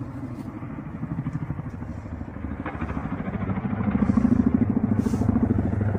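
Military helicopter flying overhead, its rotor beating in a fast, steady low chop that grows louder about halfway through as it comes closer.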